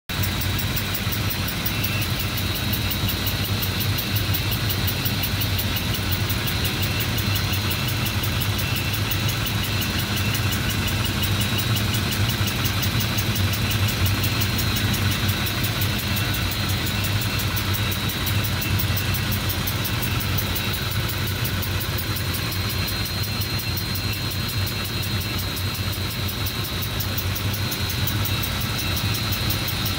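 Homemade single-cylinder model steam engine running steadily on a compressed-air line, its flywheel turning fast: an even, rapid mechanical clatter with a steady hum beneath.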